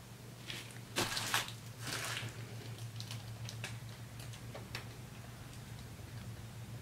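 A steady low hum, with a few soft clicks and short rustling noises in the first couple of seconds and fainter ticks after: quiet room tone and handling noise.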